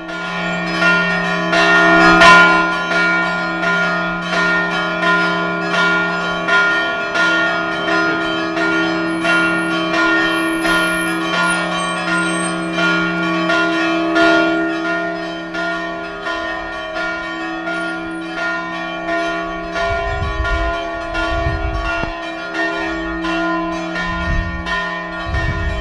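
Church tower bells pealing the call to mass, struck rapidly and continuously at about two strokes a second, their tones ringing on over one another. A few low thumps come in near the end.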